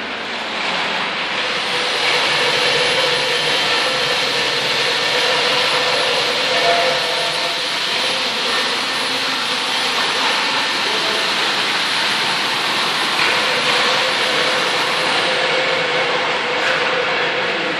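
Drum mixer for flooring mortar running steadily: a constant hum under a loud, even hiss of material churning in the drum.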